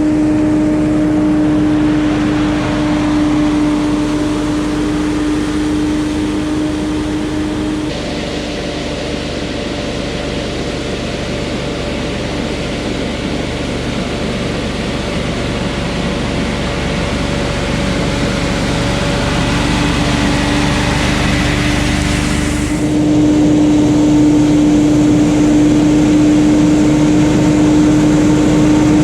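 Ferris FB2000 Hurricane stand-on debris blower running, its Briggs & Stratton Vanguard engine and fan giving a steady whine over a loud rush of air. About eight seconds in the whine fades and the rush of air turns brighter. A little after twenty seconds the whine comes back stronger and the sound gets louder.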